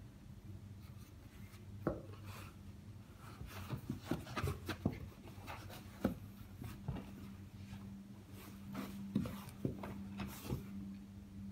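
Cardboard box scuffing, rustling and knocking as a kitten and a cat wrestle in and against it, with irregular thumps of paws and bodies on the cardboard. A steady low hum runs underneath.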